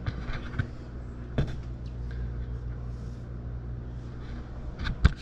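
Steady low hum with a few short clicks and knocks, the loudest near the end.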